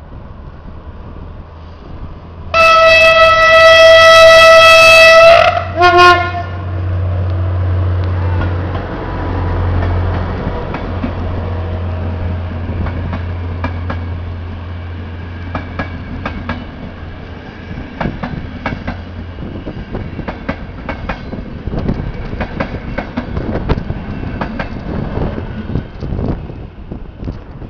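Locomotive horn sounding one long blast of about three seconds, then a short second note, from a passing electric locomotive hauling passenger coaches. After it come the locomotive's low hum and the coaches' wheels clattering over the rail joints and points as the train goes by.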